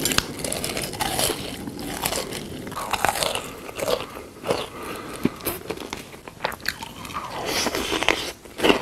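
A person eating crunchy food: repeated crisp, crunching bites and chewing, coming irregularly several times a second.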